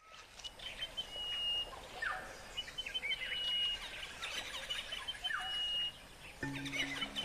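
Several birds calling. One bird repeats the same phrase about every two seconds: a rising note followed by a short, held high whistle. Near the end, music comes in with low, held notes.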